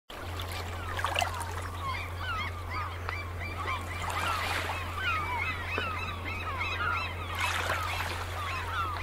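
A flock of gulls calling over open water, with many short overlapping cries throughout. A steady low hum runs underneath.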